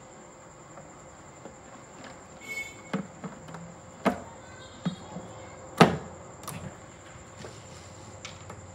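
Metal subwoofer amplifier plate being set into the cabinet's back opening: a handful of knocks and clatters as it is pressed into place, the loudest about two-thirds of the way through. A faint steady high tone runs underneath.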